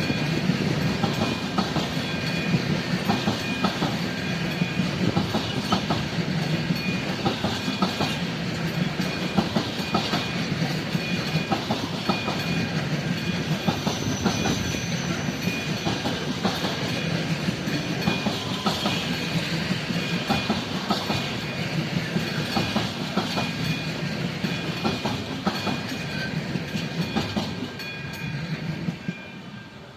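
A freight train rolling past a level crossing: steady rumble of the wagons with wheels clacking over the rail joints, while the crossing's warning signal keeps ringing. The noise falls away near the end as the last wagons pass.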